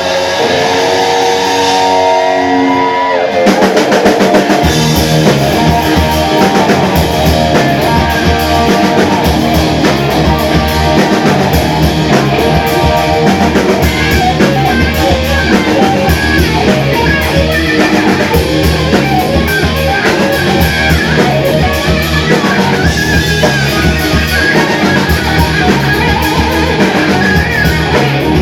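Rock band playing an instrumental passage on electric guitar and drum kit. A held chord gives way about three seconds in to the full band with a steady beat.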